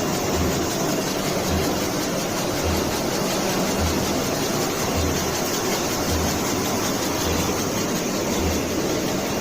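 Nonwoven-fabric tissue folding and cutting machine running: a steady mechanical whir with a low pulse about once a second.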